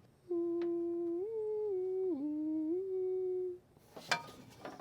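A man humming a short tune with closed lips for about three seconds, a few held notes stepping up and down. A couple of sharp clicks follow near the end.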